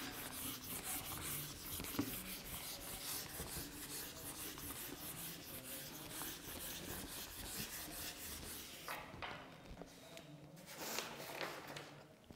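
Handheld whiteboard eraser rubbing marker off a whiteboard in rapid back-and-forth strokes. There is a short pause near the end, then a last few strokes.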